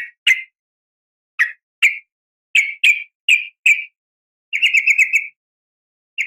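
Female yellow-vented bulbul (trucukan) calling to draw a male. First a scattering of short single chirps, then about four and a half seconds in a quick run of about eight notes, with another run beginning at the very end.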